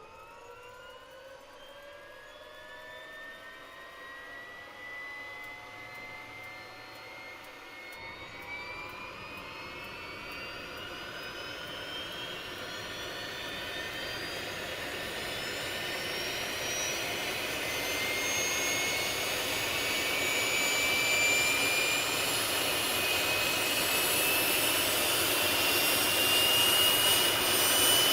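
Learjet engine spooling up during its start, heard from outside the aircraft: a whine rises steadily in pitch and grows louder. About eight seconds in, a rushing noise comes in suddenly and keeps building under the climbing whine.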